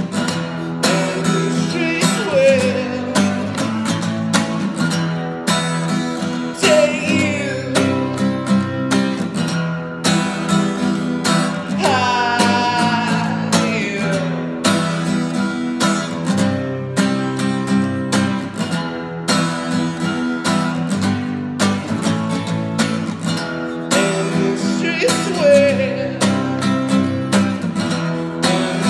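A man singing while steadily strumming an acoustic guitar. The voice holds several long, wavering notes, the longest about twelve seconds in.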